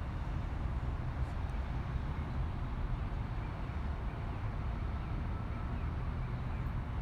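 Steady low outdoor rumble with a hiss over it, the even background noise of a city waterside, with no distinct events.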